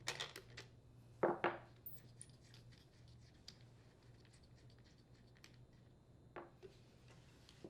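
Faint metallic clicks and scrapes of a 10 mm wrench working the adjustment bolt's safety cap loose on a Husqvarna leaf blower handle. A few sharper clicks come in the first second and a half and once more near the end, with light irregular ticking between.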